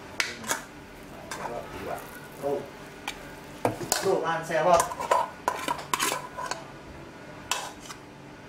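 A utensil scraping and knocking inside a metal pot as thick choux pastry dough is scraped out into a plastic mixing bowl: a string of separate sharp clinks and scrapes, busiest around the middle.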